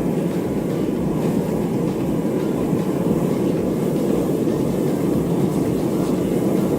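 Melting furnace burner running with a steady, rough rushing noise.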